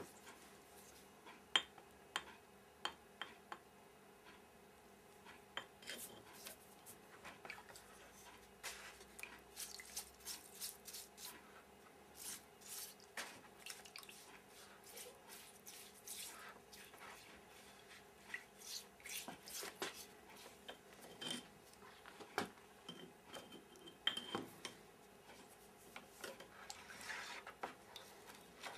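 Faint, scattered clicks, taps and scrapes of metal tools and a brush working a steel part in a plastic tub of cold-bluing solution, thickest in a few clusters.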